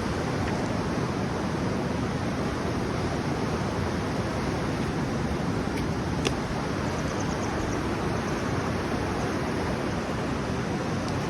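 Steady rushing noise, with a single sharp click about six seconds in.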